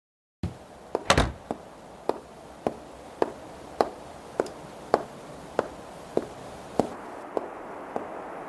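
Slow, even footsteps on a hard floor, a sharp tap a bit under two times a second, with one louder thud about a second in.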